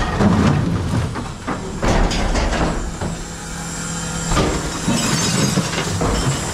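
Refuse truck's hydraulic bin lifter emptying a large wheelie bin of recycling into the rear hopper: irregular knocks and clattering of the bin and its contents, over the steady hum of the truck's engine and hydraulics.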